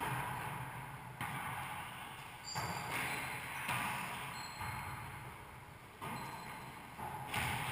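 A wallyball struck by players' hands during a rally inside a walled racquetball court: several sharp hits about a second or two apart, each ringing off the walls.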